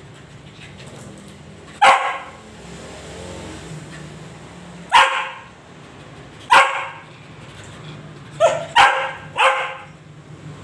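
A small dog barking: three sharp single barks a few seconds apart, then three more in quick succession near the end.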